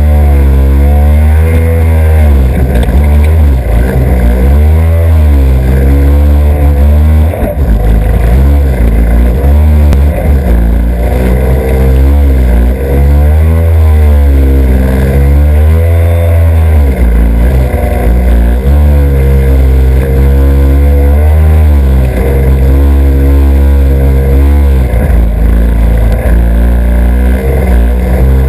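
Stand-up jet ski's engine running hard, its pitch rising and falling every couple of seconds as the throttle is worked through the waves, over a heavy low rumble.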